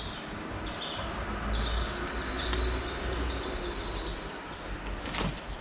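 Small birds chirping repeatedly in short high notes over a steady low rumble. A single sharp click sounds about five seconds in.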